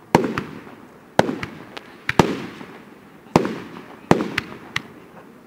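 Aerial firework shells bursting: five loud bangs roughly a second apart, each followed by a rumbling echo and a few smaller cracks.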